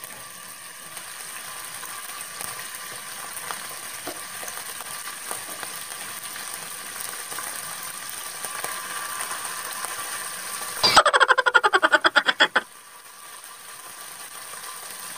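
Chicken breast pieces frying in hot oil in a non-stick pan: a steady sizzle that slowly grows louder as more pieces go in. About eleven seconds in, a loud, rapid stuttering burst of about a dozen pulses lasts under two seconds, after which the sizzle drops and builds again.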